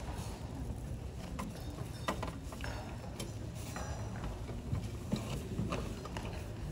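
Background sound of a large sports hall: a steady low hum with scattered light knocks and taps.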